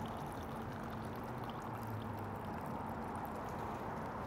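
Brewed coffee poured from a French press into the liquid in a cast iron skillet: a steady pouring trickle.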